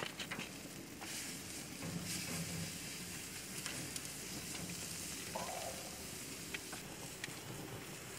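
Pepper-crusted beef roasts sizzling steadily on a grill grate over a wood fire, with a few light clicks as they are turned with tongs.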